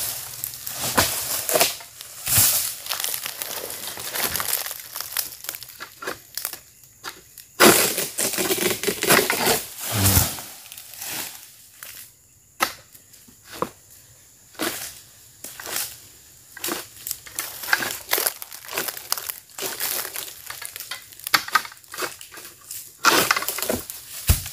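Dry oil palm fronds and leaf litter crunching and crackling in an irregular run, with a loud crunch about seven and a half seconds in and more near the end.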